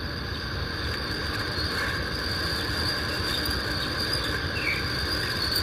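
Steady background of insects chirring, with a high continuous trill and a low rumble, in a pause between spoken phrases.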